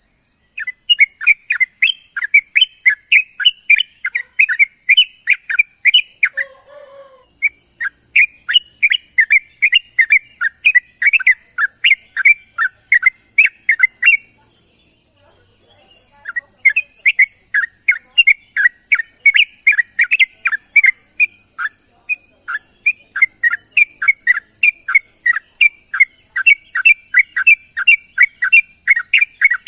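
Trucuk (yellow-vented bulbul) calling in rapid runs of bright chirps, about four notes a second, in three long bouts with short pauses about six and fourteen seconds in, over a steady high hiss.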